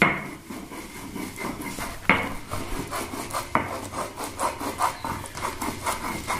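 Stone muller rubbed back and forth over a flat grinding stone (sil-batta), grinding soaked bhang leaves into a wet paste: repeated scraping strokes, with sharp knocks of stone on stone at the start, about two seconds in and about three and a half seconds in.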